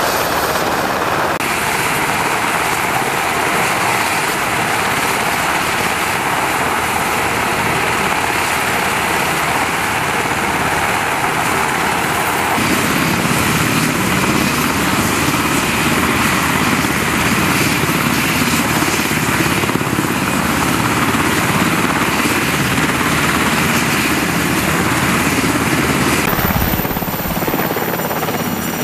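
UH-60 Black Hawk helicopters running close by, their twin turboshaft engines and main rotors making a loud, steady whine and rotor noise. The sound shifts abruptly in balance three times, and near the end a Black Hawk is setting down.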